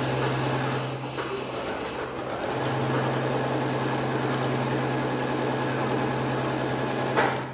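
Electric home sewing machine running steadily as it stitches through the pieced quilt layers, easing off briefly about a second in, then stopping with a sharp click near the end.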